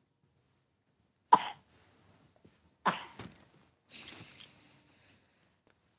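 A person coughing twice, about a second and a half apart, the first cough the louder, followed by fainter shuffling about a second later.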